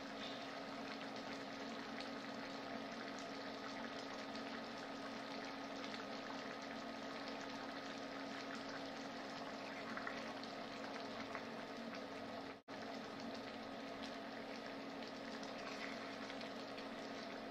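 Mushroom sauce in chicken stock bubbling steadily in a pan on an induction cooktop, with a steady low hum beneath. The sauce is being reduced to thicken it. A spoon stirs it near the end.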